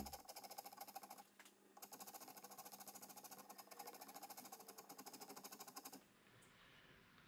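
Coarse wood rasp scraping across carved barn wood in fast, even strokes, several a second and faint. There is a short break a little over a second in, and the rasping stops about six seconds in.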